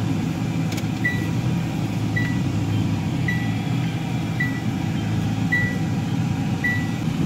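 Car engine running at low speed, heard from inside the cabin, with a short electronic warning beep repeating six times about once a second, starting about a second in.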